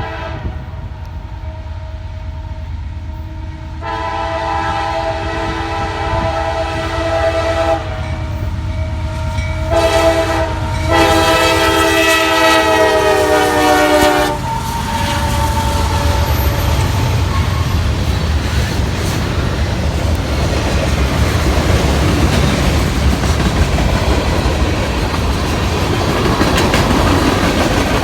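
CSX manifest freight train's locomotive horn blowing the crossing signal: a long blast, a short one and a final long blast that ends about halfway through. Then the locomotive and its cars pass close by with a loud, steady rumble of engine and wheels on the rails.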